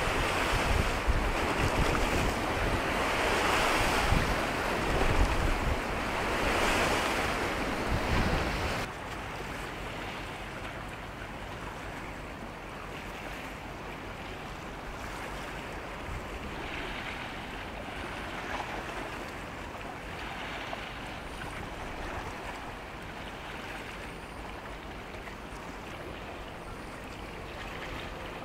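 Wind buffeting the microphone over the steady wash of sea water. About nine seconds in the level drops abruptly and a quieter, steady rush of water and wind continues.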